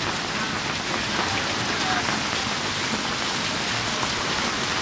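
Heavy rain falling steadily, an even hiss of drops with no break or change.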